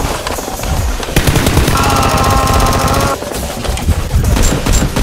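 Rapid automatic gunfire, a machine-gun sound effect of the kind laid over staged Nerf battles, with a steady high tone that comes in about two seconds in and lasts about a second.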